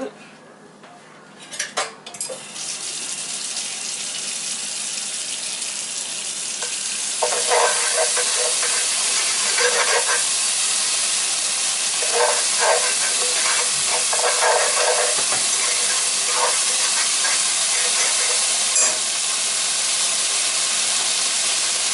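Country Crock butter spread melting and sizzling in a hot nonstick skillet, a steady hiss that starts a couple of seconds in and grows louder, with a few short scraping sounds as it is pushed around the pan.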